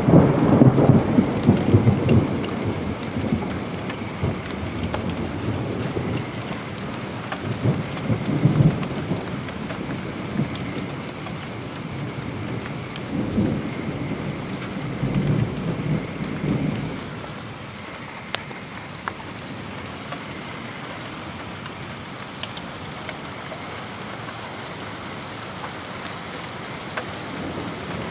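Thunder begins suddenly and rumbles for about three seconds, with more rolls about eight seconds in and again from about thirteen to seventeen seconds, over steady rain. After that the rain goes on alone.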